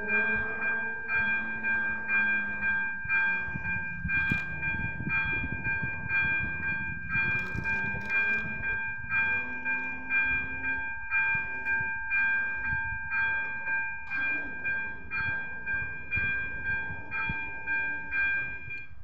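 Level-crossing electronic warning bell ringing in even, steady strokes, about one and a half a second, signalling an approaching train while the red lights flash and the barriers come down. A low rumble runs beneath it, with a hum rising in pitch at the start.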